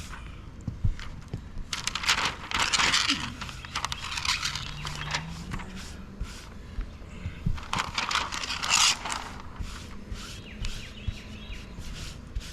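Roofing work: two spells of rustling, scraping noise, about two seconds in and again about eight seconds in, with scattered light knocks and taps between them.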